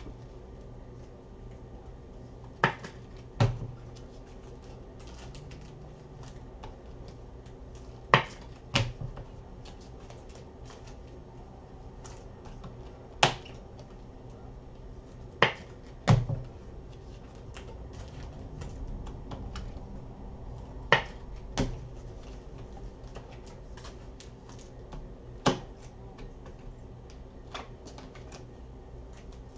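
Trading cards and packaging handled on a tabletop: sharp clicks and snaps every few seconds as cards are tapped, sorted and set down, over a low steady hum.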